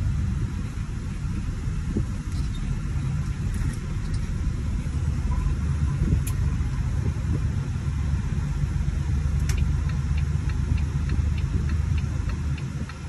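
Volvo semi-truck's diesel engine running under way, heard from inside the cab as a steady low rumble. Faint, evenly spaced ticking comes in during the second half.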